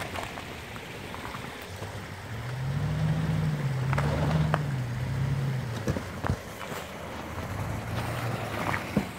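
Toyota Land Cruiser Prado's engine revving up as it crawls over rocks, easing off again after a few seconds. A few sharp knocks come in between, as the tyres go over stones.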